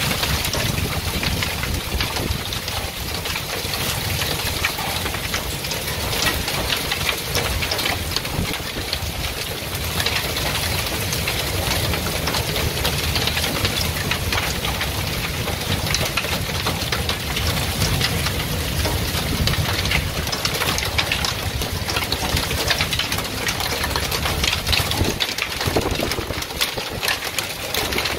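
Small hail mixed with heavy rain pelting down, a dense steady clatter of many tiny impacts over a low rumble.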